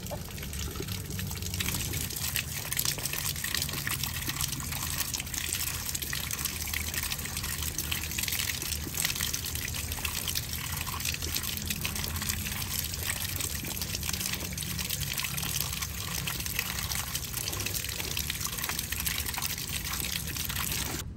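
Water gushing from a pipe onto cassava and pumpkin chunks in a woven bamboo basket, steady throughout, with splashing and rattling as a hand stirs and rubs the pieces to rinse them.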